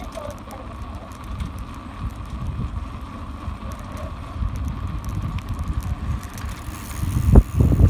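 Wind rumbling on a handlebar-mounted camera's microphone as the bicycle rides along, with a few loud knocks about seven and a half seconds in.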